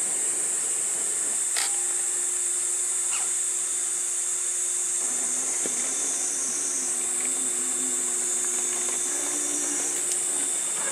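Electric motor and gear drivetrain of an Axial SCX6 1/6-scale RC rock crawler whining steadily as it crawls slowly over rock. A lower hum wavers in pitch for a few seconds past the middle, and two light knocks of the truck against the stone come about one and a half and three seconds in.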